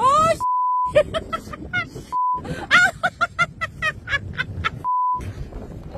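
A man shouting and exclaiming in a high, strained voice, cut three times by a steady single-tone censor beep that blanks out his swearing.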